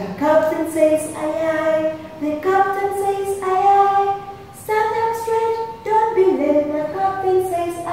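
A woman singing a children's phonics song for the long "i" sound without accompaniment, in long held notes that step up and down in pitch.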